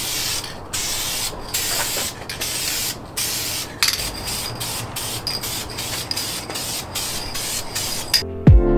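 Aerosol can of clear coat spraying in a series of short hissing bursts, each under a second, with brief gaps between. From about four seconds in, a thin whistle rides on the hiss.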